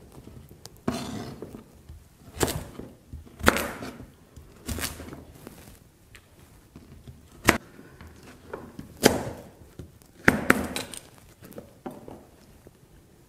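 A chef's knife chopping through Hokkaido pumpkin onto a cutting board as it is diced. The strokes come irregularly, about one a second, with a pause about six seconds in and a quick cluster of cuts near ten seconds.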